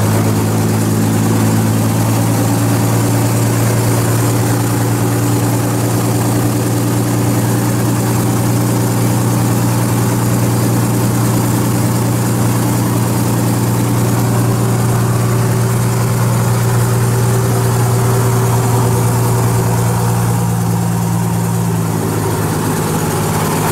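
Engine of a wooden tour boat running steadily under way, a loud low drone with water rushing past the hull. Near the end the tone of the drone shifts slightly.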